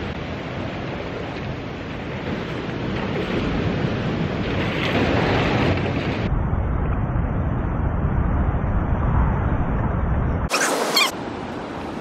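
Steady rush of ocean surf breaking on rocks, with wind buffeting the microphone. The noise swells for a couple of seconds in the middle, and a brief loud hiss comes near the end.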